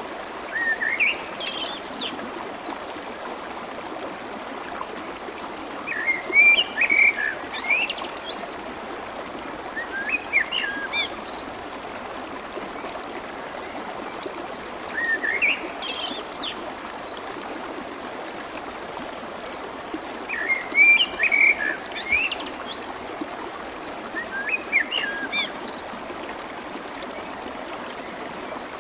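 Steady rush of a flowing stream, with a small songbird singing short phrases of rising chirps every four to five seconds over it.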